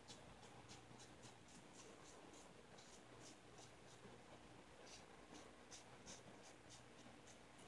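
Merkur 34C double-edge safety razor with a Gillette Silver Blue blade scraping through lathered stubble on the chin and neck: short, faint scratching strokes, two or three a second.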